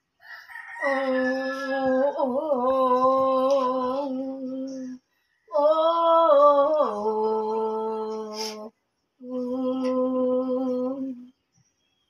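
A woman singing unaccompanied, with no backing track audible: three long held notes separated by short breaks about five and nine seconds in, the first note wavering in pitch.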